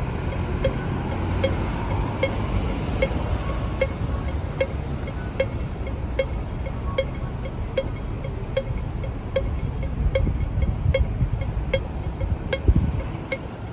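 Hong Kong pedestrian crossing signal ticking slowly and evenly, a little over once a second, over a steady low rumble of city traffic. A brief low thump comes near the end.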